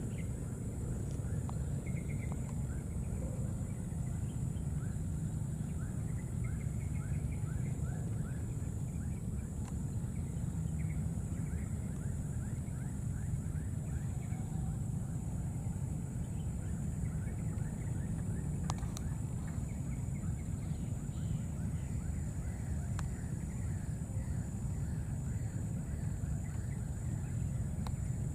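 Outdoor ambience: a steady low rumble throughout, a constant high-pitched whine, and repeated runs of short, quickly falling chirping calls.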